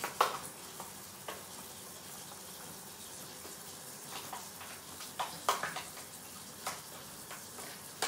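Kitchen tap left running with a steady hiss, being run to let its very hot water clear to cold. Several short clicks and knocks of plastic berry punnets being handled sound over it.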